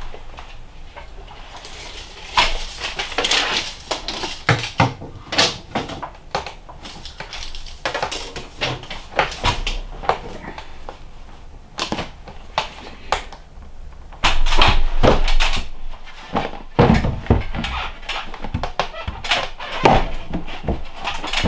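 Irregular knocks, taps and clicks with some rustling, from hand work on a ladder at a log-cabin ceiling: materials being handled and fitted overhead.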